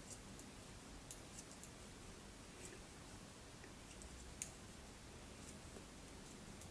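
Faint, scattered clicks of metal knitting needles touching as stitches are knitted off one needle onto the other, over quiet room tone; one sharper click about four seconds in.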